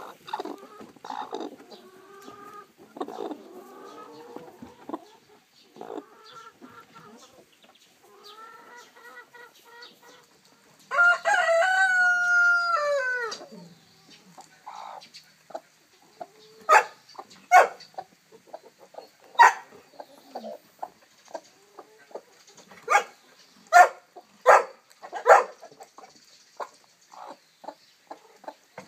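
Hens clucking softly, with a rooster crowing loudly about eleven seconds in, its call falling in pitch at the end. After that comes a run of short, sharp clicks, several in quick succession at times.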